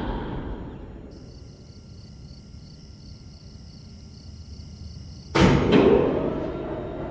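A cartoon whoosh sound effect: a sudden loud sweep about five seconds in that trails away over a couple of seconds, after a stretch of faint high hiss.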